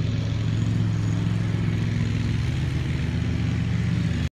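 Diamond DA40 Diamond Star light aircraft's piston engine and propeller running steadily at idle, with a low, even pulsing drone. It cuts off suddenly near the end.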